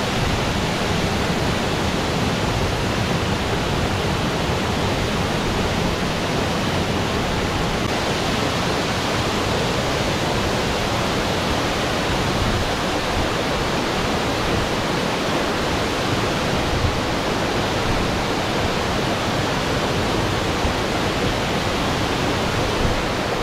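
Tall waterfall, over twenty metres high, pouring into its plunge pool: a steady, unbroken rush of falling water.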